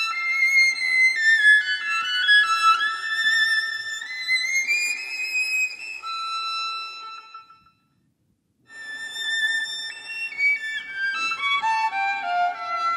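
Violin music playing a high melody that moves in steps and slides. It breaks off about two-thirds of the way through for about a second of silence, then starts again.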